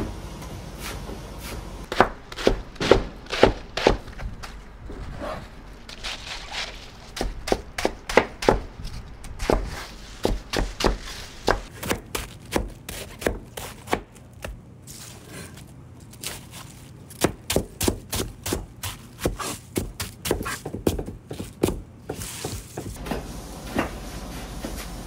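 Kitchen knives chopping heads of cabbage on a cutting board, two cooks at once: quick runs of sharp knife strikes with brief gaps between them.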